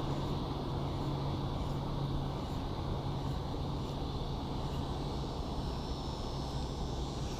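A steady, low engine drone with an even low rumble under it, holding level throughout.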